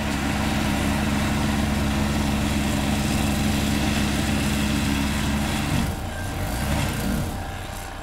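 Gasoline snowblower engine running steadily while it is pushed through deep snow; about six seconds in its note drops and wavers and it gets a little quieter.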